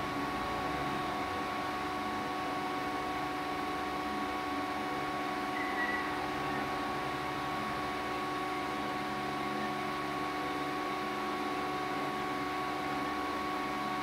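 Steady machine hum with several held tones from a large heat transfer press clamped shut during its pressing cycle.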